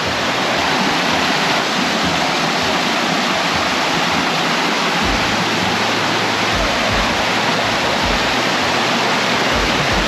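Waterfall close by: a loud, steady rush of falling water, with a few low thumps in the second half.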